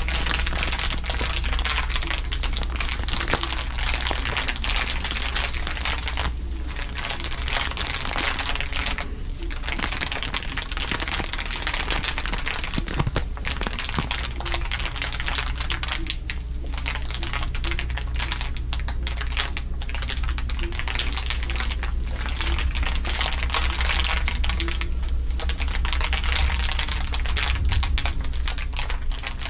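Layered crinkling: a dense, continuous crackle of many small clicks, over a steady low hum.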